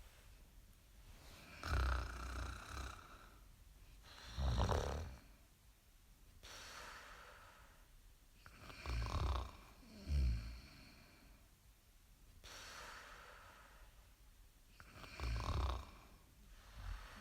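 Snoring in a steady cycle: a loud snore every five or six seconds, some coming as two close together, with softer breathing between them.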